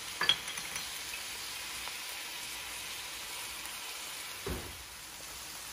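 Shrimp noodles frying in an aluminium wok, a steady quiet sizzle, with a short click near the start and a brief low knock about four and a half seconds in.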